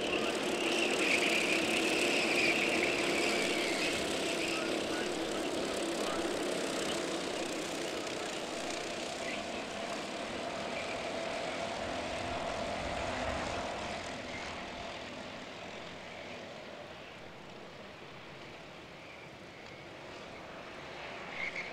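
A pack of Honda Cadet karts' single-cylinder Honda GX160 four-stroke engines running together on track, several engine notes overlapping into a steady drone. It is loudest in the first few seconds and fades as the karts move away.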